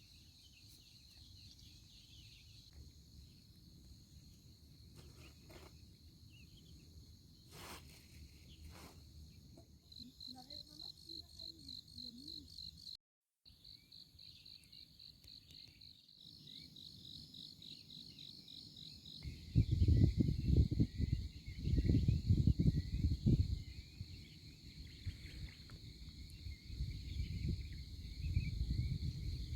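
Insects chirping steadily at a high pitch, with a fast, even pulsing for stretches in the first half. From about two-thirds of the way in, a loud, gusty low rumble comes in over them.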